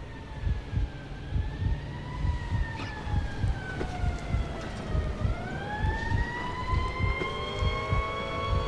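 A siren wailing: one tone drifts slowly down and back up, then rises about five seconds in as more siren tones join and hold together. Uneven low thumping runs underneath.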